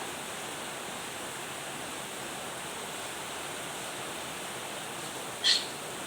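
Steady hiss of heavy rain, even and unbroken, with a short sharp burst about five and a half seconds in.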